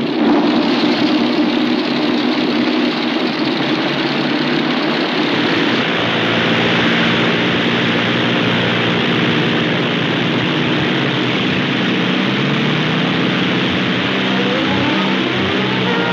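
Cartoon sound effect of a giant multi-engine propeller bomber's engines running at full power for takeoff: a loud, dense, steady drone. A rising tone comes in near the end.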